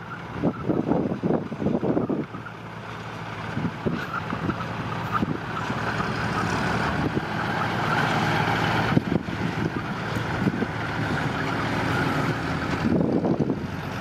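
Small dump truck's engine running steadily, growing louder over several seconds as it drives across the dirt. Wind buffets the microphone in the first two seconds and again near the end.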